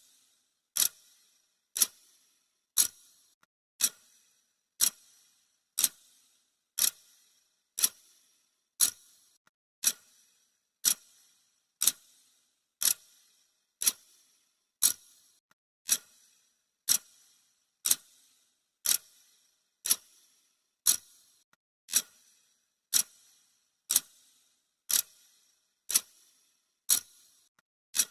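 Clock ticking sound effect: one sharp, crisp tick each second, perfectly even.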